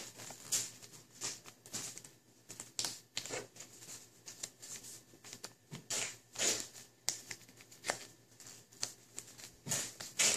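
A sheet of origami paper being folded and creased by hand: irregular short crisp rustles and crackles with quiet gaps between, the loudest around six and a half seconds in and again near the end.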